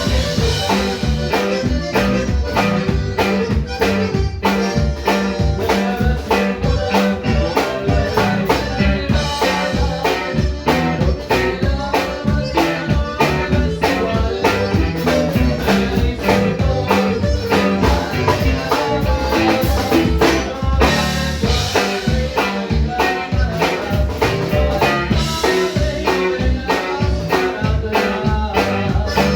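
A live band playing with a drum kit and bass at a steady beat.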